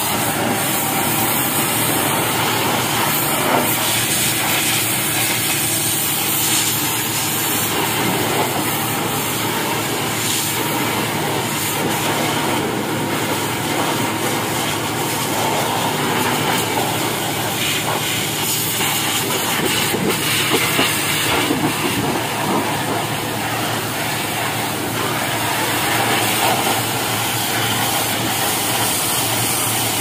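Pressure washer spraying a high-pressure water jet onto a forklift's metal frame and engine compartment: a loud, steady hiss.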